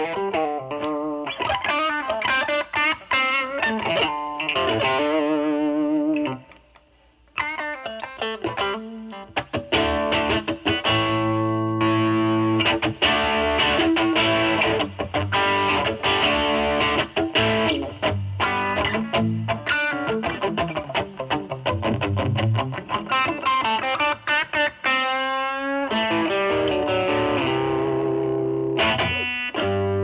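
Stratocaster with single-coil pickups played through a DOD FX102 Mystic Blues Overdrive pedal with its drive knob full, into the overdrive channel of a Marshall Valvestate amp. It plays heavily overdriven blues lines and chords, with a brief pause about seven seconds in.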